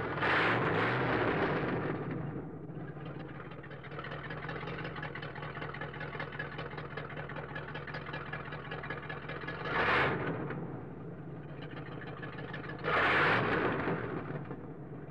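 A car engine idling steadily, revved briefly three times: at the start, about ten seconds in and again near the end.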